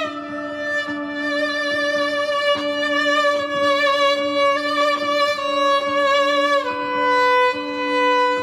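Solo viola bowing a slow melody of long notes with vibrato, stepping down in pitch, with a clear drop about two-thirds through. A steady low held note sounds beneath it.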